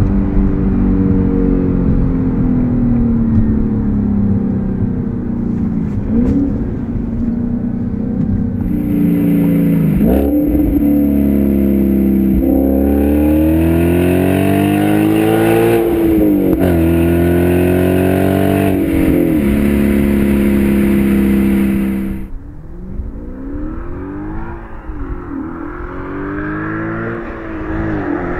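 Audi S5 with an AWE Tuning aftermarket exhaust accelerating hard, its engine note climbing and then dropping at each of several upshifts. About three quarters of the way in, the engine becomes quieter and more distant, rising and falling in pitch as the car is heard from outside.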